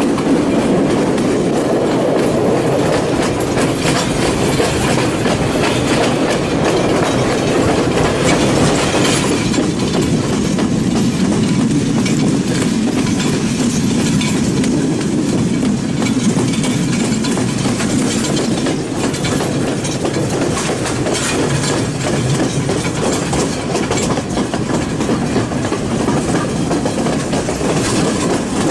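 Passenger train running on the line, heard from on board: a steady rumble of the carriage and wheels on the rails, with scattered clicks.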